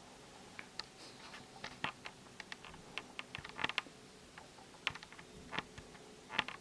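Irregular light clicks and taps, a few a second, spread throughout.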